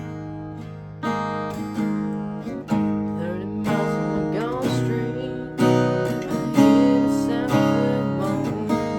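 Acoustic guitar strumming chords about once a second, with sliding notes in the middle of the passage.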